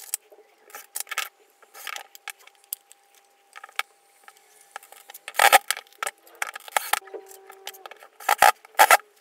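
Hands handling tools and small wooden and plastic pieces on a hard tabletop: a string of clicks, rattles and clatter. The loudest knocks come about halfway through and again near the end.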